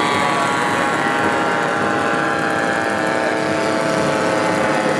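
Several radio-controlled WWI-replica model airplanes flying overhead at once, their engines running together as a steady mix of tones whose pitches slowly rise and fall as the planes pass.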